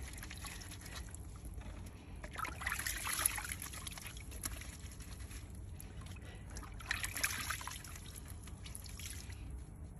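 Water dripping and trickling into a plastic tub of washing water as a wet sock is rubbed with a bar of soap over it by hand, with two louder spells about two and a half and seven seconds in.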